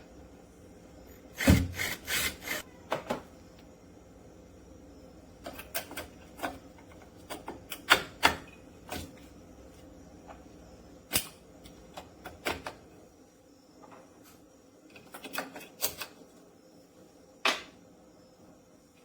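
Irregular sharp clicks and knocks, a few at a time in loose clusters with quiet between, like hard plastic or metal being handled or tapped.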